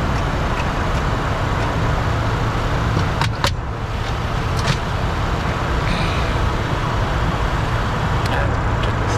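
Steady cockpit noise of a Bombardier Challenger 604 climbing at climb thrust: a continuous rush of airflow and engine noise over a low hum. A few sharp clicks come about three and a half seconds in, with another near five seconds.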